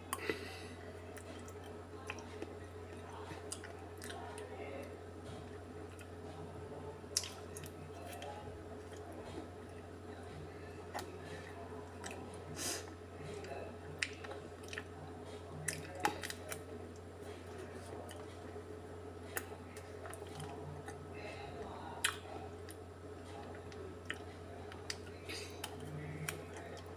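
Eating ice cream with a metal spoon: scattered sharp clicks and scrapes of the spoon in a plastic tub, with soft mouth sounds of eating, over a steady low hum.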